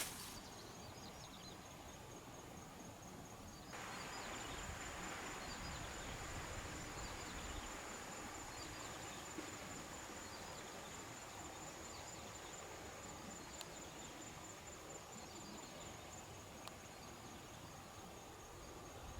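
Quiet outdoor ambience: a steady wash of faint noise, and from about four seconds in a thin, high, unbroken insect trill over a slightly louder hiss, with a few tiny clicks.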